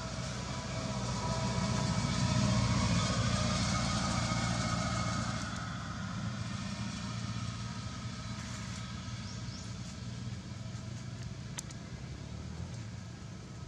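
A motor vehicle's engine hum in the background, swelling over the first few seconds and then fading as it passes. One sharp click comes near the end.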